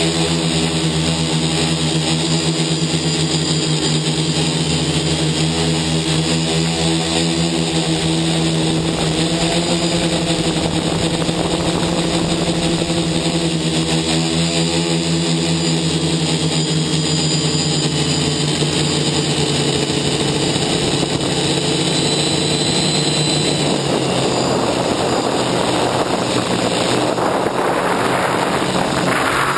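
TBS Discovery quadcopter's brushless motors and propellers buzzing steadily in flight, heard close up from the onboard camera. Near the end the tone shifts and a rush of air grows as the craft dives.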